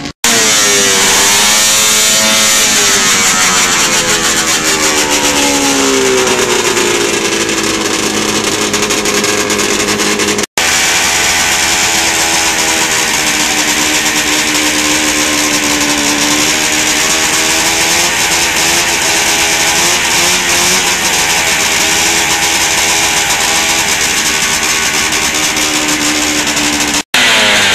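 Racing snowmobile engines revving loudly, the pitch climbing and falling. After a cut about ten seconds in, a stripped-down racing snowmobile with its engine exposed runs at high, fairly steady revs that waver slightly.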